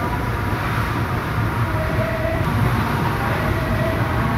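Dodgem cars running around the track: a steady low rumble of the cars moving over the floor.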